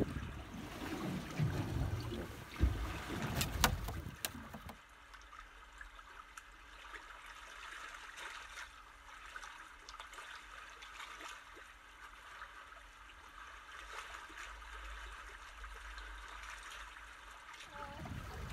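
Sea water splashing and slapping as a hooked gurnard thrashes at the surface beside the boat, with two sharp knocks in the middle of it. About five seconds in it switches to a faint, steady underwater hiss that lasts until near the end.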